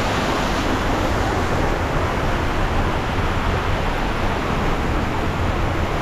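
Water rushing and swirling in a water slide's bowl as an inner-tube rider circles around it: a steady loud rush of water with a low rumble underneath.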